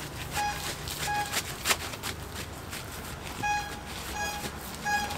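A passing bakso vendor's call signal: a short bright tone repeated about every 0.7 s, pausing for about two seconds midway. A single sharp knock comes in the first half.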